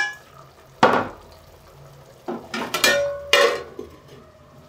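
Metal clanks of a spoon and an aluminium cooking pot and lid: a clank at the start and another about a second in, then a cluster of clanks with a ringing tone as the lid is set on the pot.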